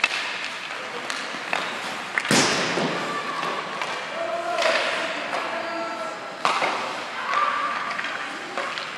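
Ice hockey play at the rink boards: several sharp thuds and slams of pucks and players hitting the boards, the loudest about two seconds in, with players calling out in between.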